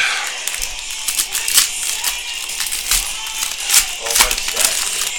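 Foil trading-card pack wrapper crinkling and tearing as it is opened by hand, mixed with a run of quick clicks and taps from cards being handled and stacked.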